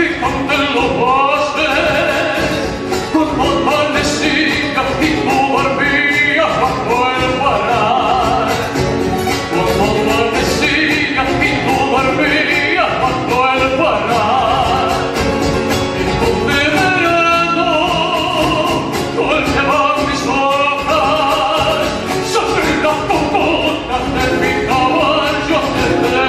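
Folk song: a voice singing with a wavering, vibrato-like pitch over instrumental accompaniment.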